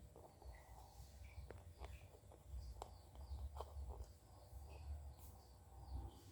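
Faint outdoor background: scattered short high bird chirps over a low rumble, with a few light clicks.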